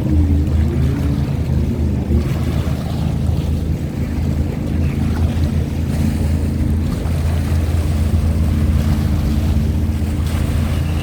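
Personal watercraft (jet ski) engines running on the water, their pitch wavering up and down in the first couple of seconds, then holding steady. Wind noise on the microphone.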